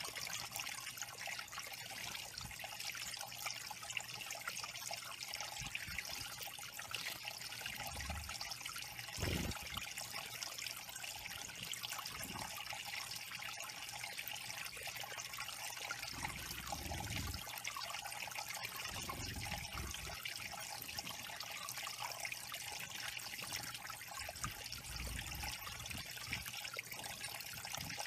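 Small waterfall in a stone-ledge garden pond trickling steadily over the rocks into a shallow pebble pool, with a few brief low rumbles, the strongest about nine seconds in.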